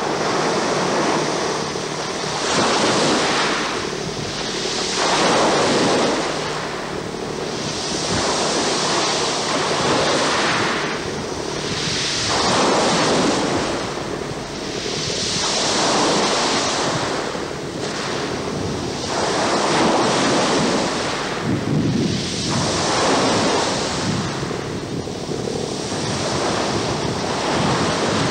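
Choppy sea water washing and splashing in surges every few seconds, with wind buffeting the microphone.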